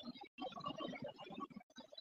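Faint rushing of fast-flowing floodwater in a swollen creek, cutting in and out with brief dropouts.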